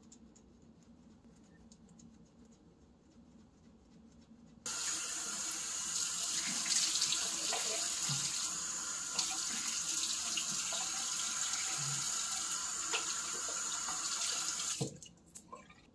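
Bathroom sink faucet turned on about five seconds in, water running steadily into the basin for about ten seconds, then shut off abruptly.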